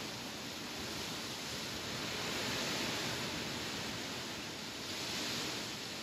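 Wind blowing through tall grass: a steady rustling hiss that swells in gusts about two and a half seconds in and again near the end.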